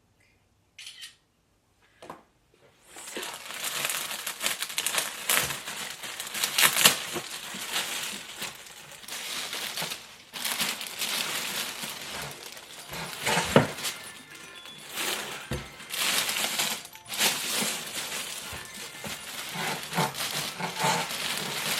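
Packaging crinkling and rustling as it is pulled and handled, with many sharp clicks and knocks mixed in, starting about three seconds in after a few faint clicks.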